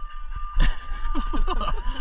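A man's voice from about half a second in, without clear words, over a steady low rumble and a thin steady high tone.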